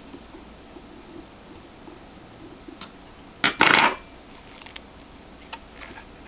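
Small hard parts being handled during a laptop hard drive swap: faint clicks and taps, then one short, loud clatter about three and a half seconds in, a sharp click followed by a quick rattle.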